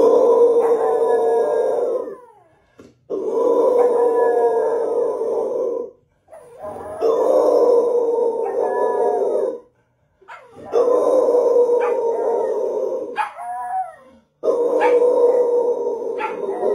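A grey adult pit bull-type dog and a white puppy howl together in five long howls of about two to three seconds each, separated by short breaks. A thinner, higher howl falls in pitch over the adult's steadier, deeper one.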